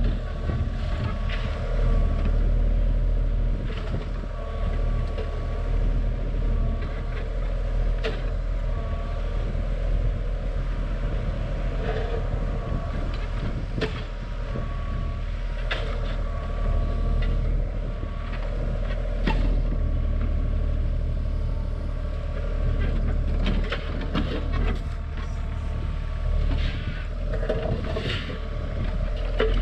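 Terex TC25 mini excavator's diesel engine running under hydraulic load, swelling and easing every few seconds as the boom and tilt-rotator bucket work. Scattered sharp knocks and clatter come from the bucket dragging and dropping backfill dirt and stones.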